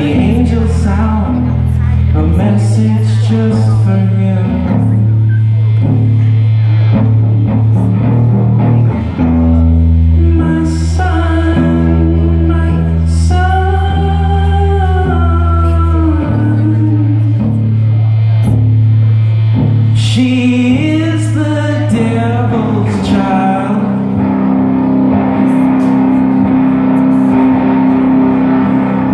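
A live song: a singer with an electric guitar, the voice holding long, gliding sung lines over held low notes.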